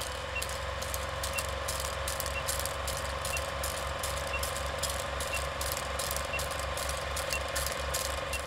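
Film projector sound effect: a steady mechanical clatter and hum with crackling clicks, and a short faint beep about once a second as the countdown leader runs.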